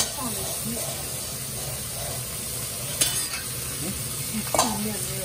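Beef shank searing in hot oil in an enameled cast-iron Dutch oven, a steady sizzle. Three sharp metal clinks, at the start, about 3 s in and about 4.5 s in, as tongs and a mesh splatter screen touch the pot.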